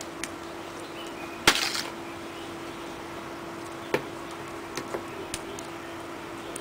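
A metal spoon knocking and scraping while filling is scooped up and spread over bread dough: a sharp knock with a short scrape about a second and a half in, a smaller click about four seconds in, then a few light clicks, over a steady hum.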